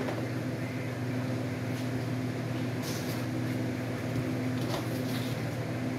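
A steady electrical hum throughout, with a few faint scrapes and rustles of a cardboard-backed heater being handled and slid into a cardboard box.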